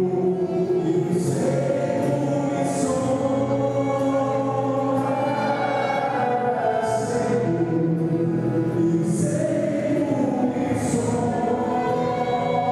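Group of voices singing a slow hymn, holding long notes, with the sung words' hissing consonants coming every second or two.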